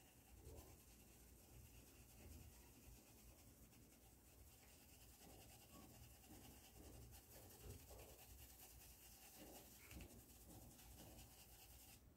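Faint rubbing of a paintbrush working pink paint into a cotton tea towel in short, irregular strokes, over a low steady hum.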